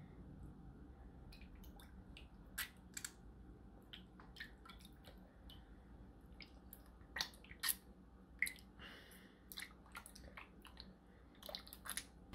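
Hands rinsing out a cleaned squid mantle in a bowl of water: faint wet squishing and small splashes, with scattered soft clicks.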